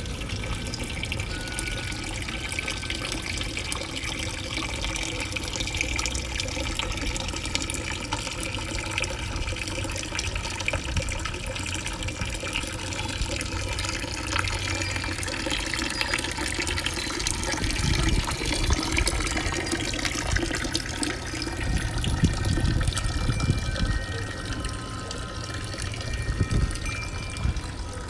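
Stone wall fountain: a stream of water falling from a lion-head spout into a stone basin, a steady splashing pour.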